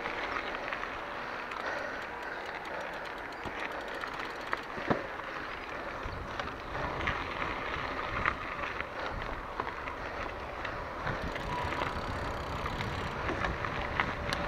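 Mountain bike riding over a dirt singletrack: tyres rolling on soil and stones, the bike rattling, with a few sharp knocks from bumps. Wind buffets the microphone more strongly from about halfway through.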